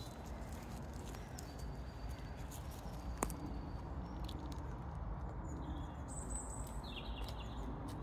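Footsteps on the forest floor, crunching leaf litter with scattered twig snaps, a sharp one about three seconds in, over a low rumble of wind and handling on the microphone. A few faint bird chirps come in near the end.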